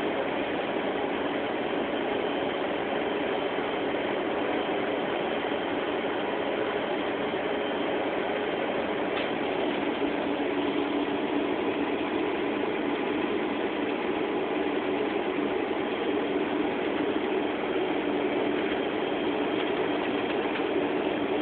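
Steady engine and road drone heard from inside a vehicle's cab while driving on a snowy highway, with a constant low hum running under it.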